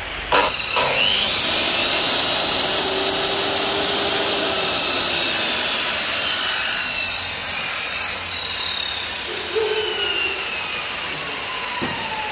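Compact 216 mm, 1050 W miter saw running, coming in loudly about a third of a second in with a whine of thin tones that slowly fall in pitch.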